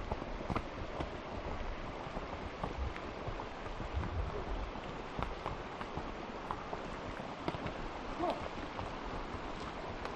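Horse walking along a forest dirt trail: irregular soft hoof steps and clicks over a steady rustling hiss.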